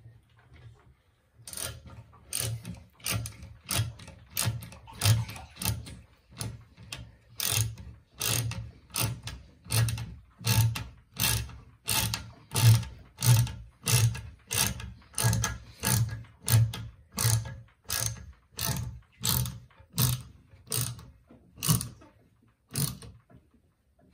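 Half-inch ratcheting wrench clicking in quick regular strokes, about one and a half a second, as it tightens a toilet seat's mounting nut.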